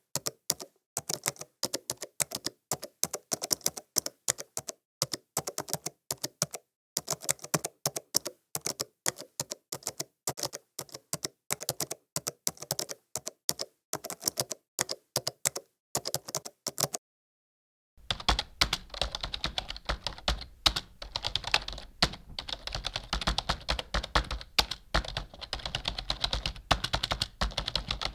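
Typing on a computer keyboard: rapid key clicks in bursts with short pauses. After a brief silence a little past halfway, the typing resumes, faster and denser, over a steady background hiss.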